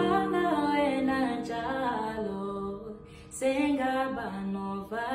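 Background music: a song with a sung vocal line holding and gliding between notes over the backing, with a brief break about three seconds in.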